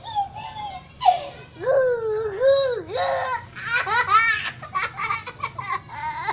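A young girl laughing hard in a high-pitched voice: long squealing glides at first, then quick bursts of giggles.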